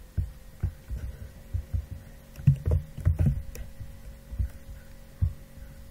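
Muffled, irregular taps of typing on a computer keyboard, heard mostly as dull low thuds.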